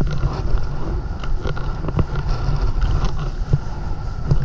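Wind buffeting the microphone: a loud, uneven low rumble with a few faint clicks.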